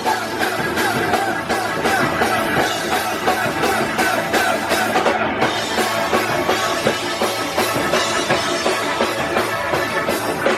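Live rock band playing: loud electric guitars over a steady drum-kit beat, recorded in a small venue.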